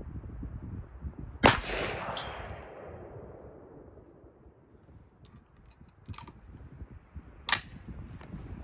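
Two rifle shots about six seconds apart from an AR-style rifle firing handloaded 125-grain .30-calibre rounds. Each shot is a sharp crack with a fading echo, the first the louder, and a few faint clicks fall between them.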